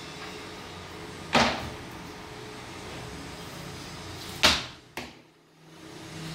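Flat crib panels set down onto a stack on a wooden workbench: two sharp knocks about three seconds apart, with a lighter knock just after the second, over a steady background hum.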